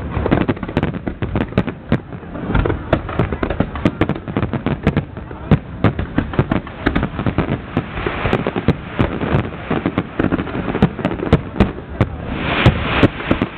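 Aerial fireworks display: a rapid, unbroken string of bangs and pops, thickening into dense crackling near the end.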